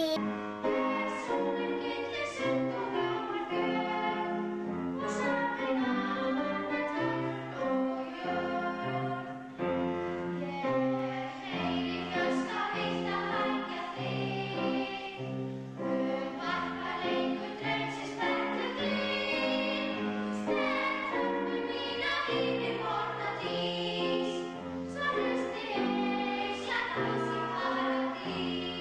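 Children singing a song together as a choir, with held notes moving step by step over a low instrumental accompaniment.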